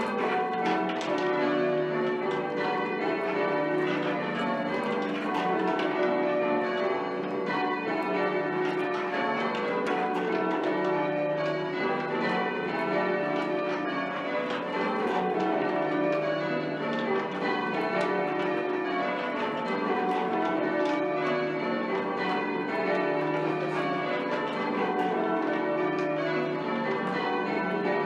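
A ring of eight church bells with a 24 cwt tenor, rung full circle in change ringing. The bells strike one after another in rows that run down the scale, over and over at a steady pace.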